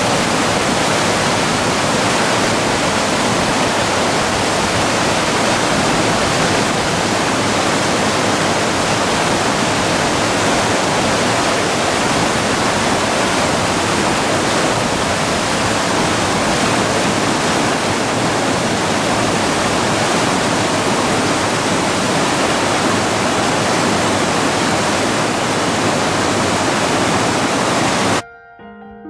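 The Shimanto River in flood after a typhoon: fast, swollen water rushing with a loud, steady roar. It cuts off suddenly near the end, and soft piano music begins.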